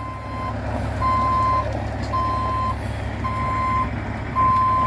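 Peterbilt tri-axle dump truck backing up: its reversing alarm beeps about once a second, five times, over the steady low rumble of its diesel engine.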